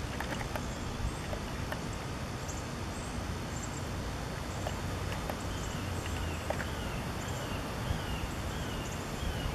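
Steady low outdoor background noise, with a small songbird repeating a short falling chirp about twice a second through the second half, and a few faint ticks scattered throughout.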